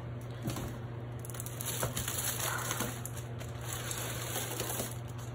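Plastic air-column bubble wrap and a thin foam sheet crinkling and rustling as they are handled, with scattered small crackles, over a steady low hum.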